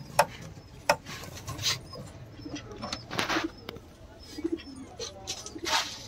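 Aviary birds calling: many short, high chirps from small finches, a few short low calls, and a couple of sharp clicks with several brief noisy bursts in between.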